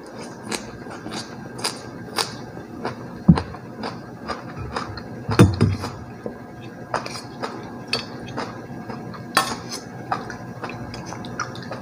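Eating at the table: a metal spoon clinking and scraping in a stainless steel soup bowl, with chewing between. Many short clicks and clinks come irregularly, with a couple of low, dull sounds about a third and half way through.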